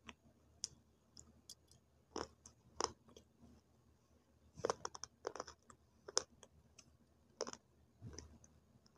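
Close-up crunching of dry multani mitti (Fuller's earth) clay sticks being bitten and chewed. Sharp, crackly crunches come at irregular intervals, with a busy cluster in the middle and single crunches near the end.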